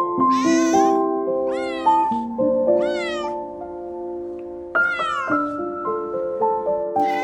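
A cat meowing over background music with a melody of held notes. There are four separate meows, each rising then falling in pitch, and another begins near the end.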